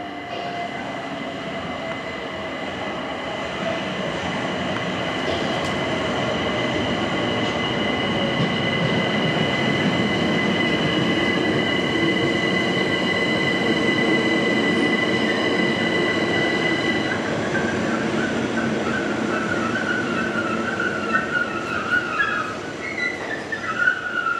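London Overground Class 378 electric multiple unit pulling into the platform and slowing, growing louder as it draws near. Its motor whine falls in pitch as it slows, steady high tones cut off about two-thirds of the way through, and the wheels squeal repeatedly near the end as it brakes.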